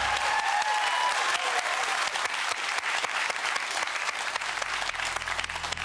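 Studio audience applauding: dense clapping that eases off slightly toward the end.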